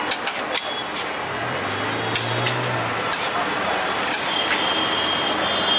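Metal spoon scraping and clicking against a steel serving tray as fried noodles are scooped onto a plate, a few sharp clicks in the first second, over steady street noise.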